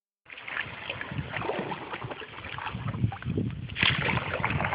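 Water splashing and lapping around an inflatable kayak as it is paddled, with small irregular splashes and a stronger splash near the end.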